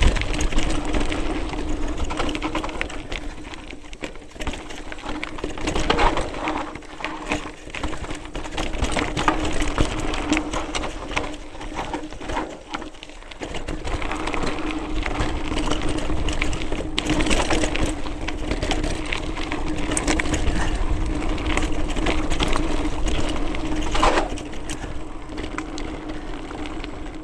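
Mountain bike coasting down a rocky dirt trail: the rear freehub buzzes steadily under the crunch of tyres on gravel. The bike knocks and rattles over rocks, loudest about six seconds in, around seventeen seconds and near the end.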